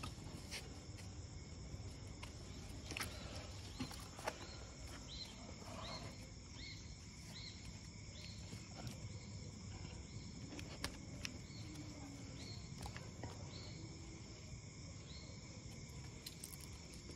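Faint insect chorus: a steady high drone, with a short rising chirp repeating about three times every two seconds through the middle, and a few scattered soft clicks.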